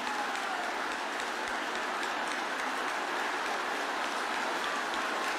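A large congregation praying aloud all at once, many voices blending into a steady, even wash of crowd noise.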